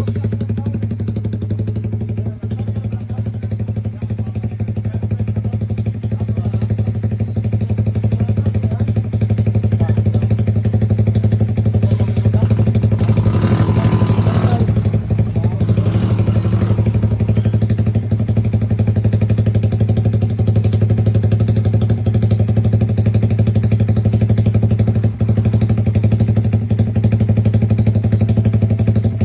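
Suzuki Raider 150 Fi single-cylinder motorcycle engine idling steadily through a Jecspeed 'super open' aftermarket exhaust.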